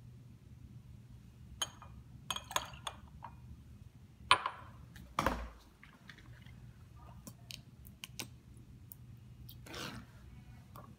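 Glass beaker handled and set down on a lab benchtop: a few scattered sharp clicks and clinks and one dull thump about five seconds in, over a steady low hum.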